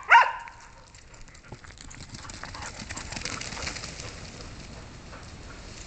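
A dog barks once right at the start. Then comes a rough patter of paws running on gravel, loudest about three to four seconds in.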